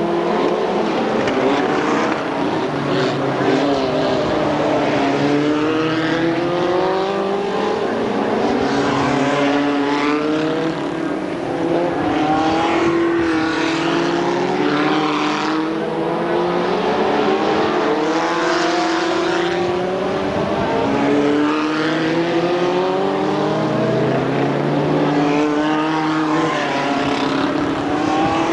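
Several winged oval-racing stock cars lapping together, their engines rising in pitch again and again, every two or three seconds, as they accelerate. The overlapping engine noise never breaks.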